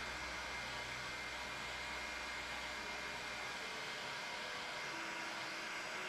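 Heat gun blowing steadily with an even hiss, pushing wet white epoxy resin into lace-like foam cells.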